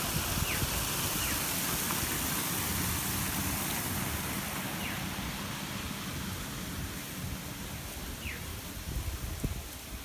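Rushing water of a small creek waterfall, a steady hiss that thins out over the second half.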